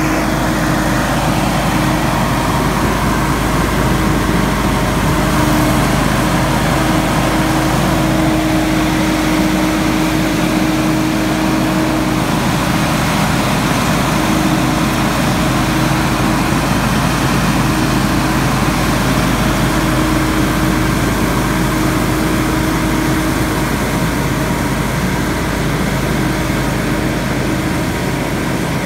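Hurricane X3 stand-on leaf blower running steadily as it blows leaves: a loud, even rush of air from its fan over the engine's constant hum.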